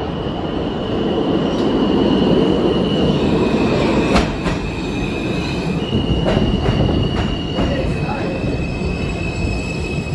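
R160A subway train with Alstom propulsion pulling into an underground station and slowing past the platform: a loud rumble of the cars going by, a high steady squeal or whine that shifts pitch a few times, and several sharp clacks as wheels cross rail joints in the middle of the passage.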